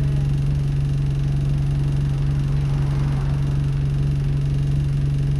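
Alexander Dennis Enviro200 Dart single-decker bus's diesel engine running with a steady low hum, heard from inside the passenger saloon.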